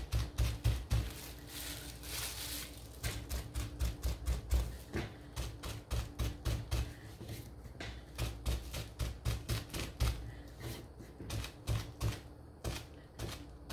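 A crumpled wad of bubble wrap dabbed again and again onto a small wooden craft piece on a table, making a quick, even run of soft taps, about three a second. This is dabbing on a paint finish.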